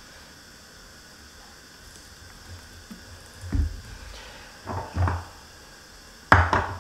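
Soft handling sounds of fingers pressing and spreading olive oil over raw minced-meat kebab patties on a plate, with a couple of low thuds and a sharp knock near the end, over a steady faint hiss.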